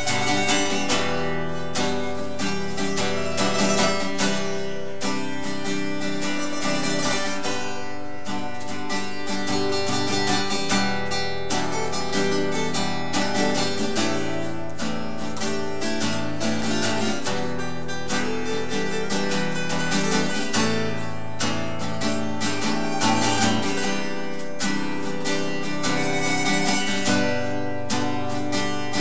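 Instrumental passage of a song: strummed acoustic guitar with accompaniment, no singing.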